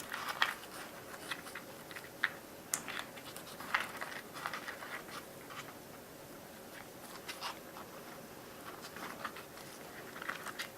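Faint, scattered light clicks, taps and scrapes of hands handling a model plane's airframe and wiring.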